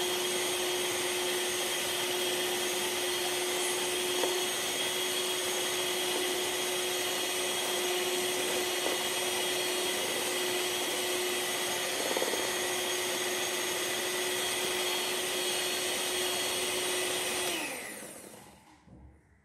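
Electric hand beater whipping cream in a bowl, its motor running at one steady speed, then switched off near the end, its pitch falling as it winds down.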